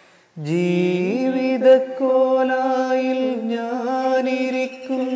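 A man singing a slow Malayalam love song unaccompanied, in long held, wavering notes. After a brief pause he comes in on a note that slides upward.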